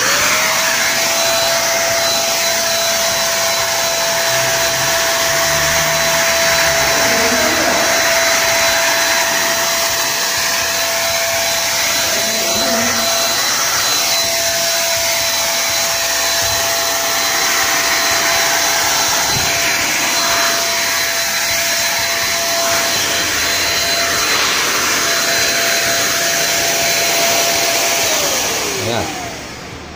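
INGCO electric spray gun starts up and runs steadily, a constant whine over a strong hiss of air and spray, then is switched off near the end, its whine falling away.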